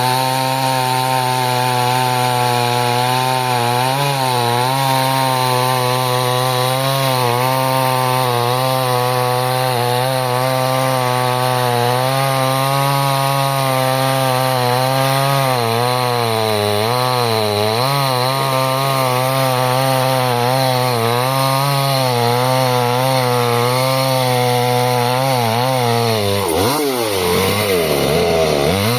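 Chainsaw running under load as it cuts through a large log. The engine pitch wavers steadily as the chain bites, then dips and swings briefly near the end before settling again.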